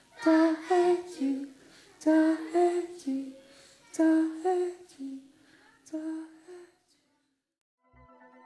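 A voice humming a short tune of a few notes, repeated about every two seconds and growing fainter until it dies away about seven seconds in. Near the end, after a moment of silence, a steady synthesizer chord comes in with two low thuds.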